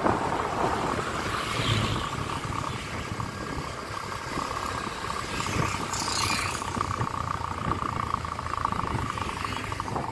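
Motorcycle engine running steadily while riding along a road, with road and wind noise; about six seconds in another motorcycle passes close by.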